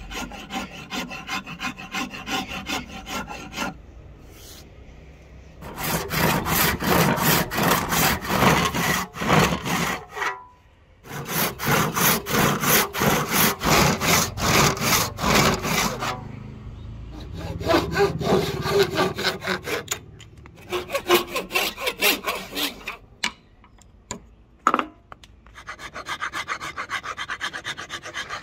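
Hand tools working a hardwood axe handle: a file scraping across the wood, then a handsaw cutting it in two long runs of fast back-and-forth strokes, followed by more shorter runs of strokes. A single knock comes near the end, and then steady file strokes.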